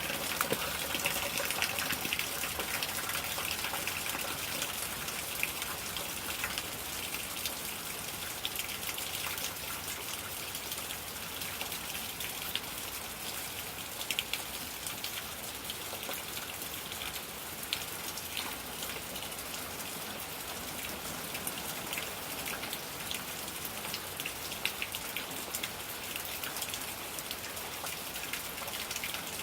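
Steady rain falling, with many scattered sharp drop hits on nearby surfaces. Slightly heavier in the first few seconds, then even.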